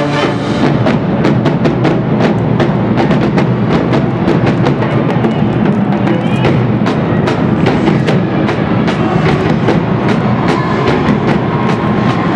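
A college marching band's drumline playing a fast, driving beat on snare, tenor and bass drums with cymbals, the brass section largely dropped out.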